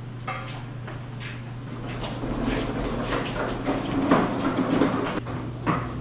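Irregular knocking and clattering that swells from about two seconds in, over a steady low electrical hum.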